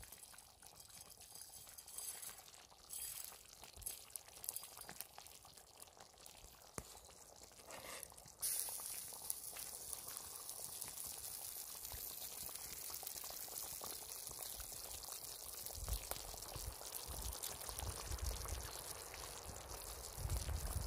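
Food cooking in a hot pan over a campfire, giving a steady high sizzling hiss that starts suddenly about eight seconds in, after a few quieter seconds of small clicks.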